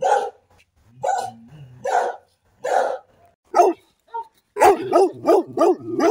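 Dogs barking fiercely in warning: single barks about once a second, then from about two-thirds of the way in a fast run of barks, about three a second.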